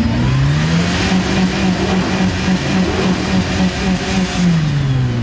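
Lifted Jeep Wrangler TJ's engine revving up within the first second and held high under load as it drives up a muddy slope, the note pulsing about three to four times a second, then dropping back near the end.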